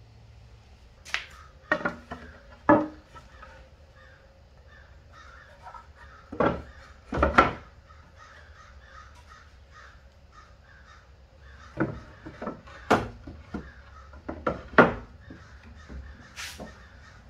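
Pine boards knocking and clattering against a wooden cabinet frame as they are set into place by hand: a string of sharp wooden knocks at irregular intervals, two of them louder than the rest. Crows caw in the background.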